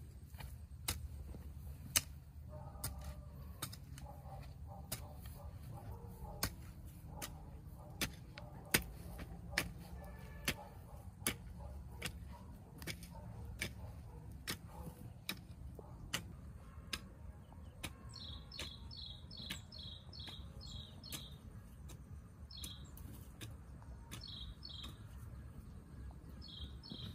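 Sharp knocks at a steady pace of about one a second, each one short and clean. A small bird chirps in a quick run of notes about two-thirds of the way through, with a few shorter chirps near the end.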